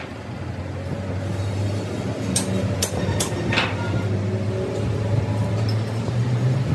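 Large metal lathe running with a steady low hum while a steel truck rim is being turned, with a few sharp metallic clicks and a brief scrape at the tool post about two and a half to three and a half seconds in.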